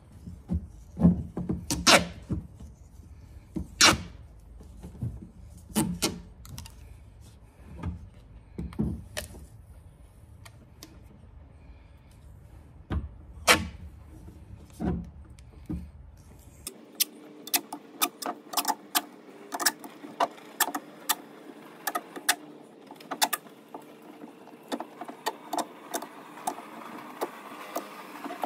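Hands working on a chainsaw's wrap-around handlebar, with scattered knocks and clatters as the bar and loose parts are handled on a hard surface. From a little past halfway, a quick run of crackling clicks comes as tape is pulled off the roll and wound onto the handle grip, over a faint steady hum.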